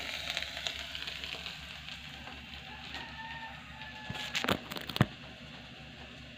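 A spoon scraping in a metal cooking pot for about the first second, then the food crackling faintly as it cooks. A few sharp knocks come about four to five seconds in.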